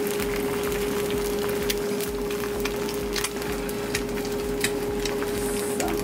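Eggs frying in olive oil in a nonstick pan, sizzling with a steady crackle of small pops, over a steady hum.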